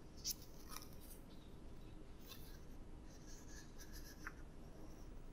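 Faint rustling of a paper booklet being handled, with a few soft ticks, in an otherwise quiet room.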